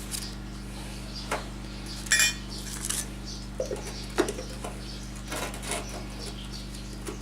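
Scattered light metallic clinks, taps and knocks of tools and small objects being handled on a workbench, with a brief ringing jingle about two seconds in. A steady electrical hum runs underneath.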